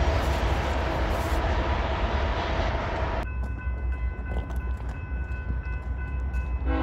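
BNSF diesel freight train passing close with a steady rumble and rail noise. About three seconds in this cuts to a quieter, steady multi-note chord typical of a train horn sounding at a distance, over a low rumble.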